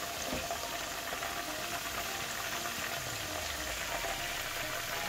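Battered fish fillets deep-frying in a pan of hot oil: a steady sizzle of bubbling oil with small crackles.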